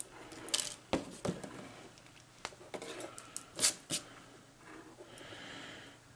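Several sharp clicks and small knocks from a modular RJ45 crimp-and-strip tool working the end of a Cat5e cable and being set down on a cardboard box, followed about five seconds in by a soft rustle of fingers handling the stripped cable end.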